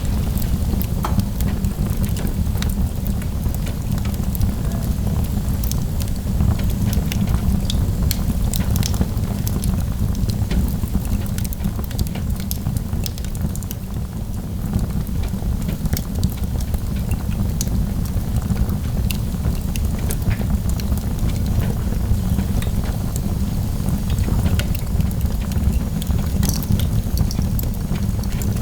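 Wood fire burning in a fireplace, crackling, with sharp pops scattered irregularly over a steady low rumble.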